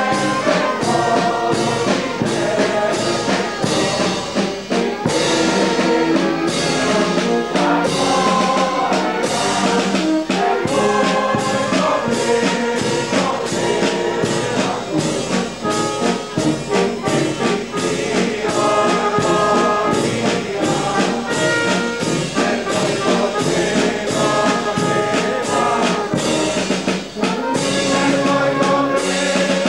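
Marching brass band playing a tune, with trumpets and trombones over a sousaphone, with a regular beat.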